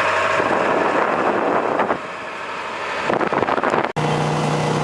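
Boat engine running under heavy wind noise on the microphone. Near the end the sound cuts out for an instant and comes back as a steadier engine hum.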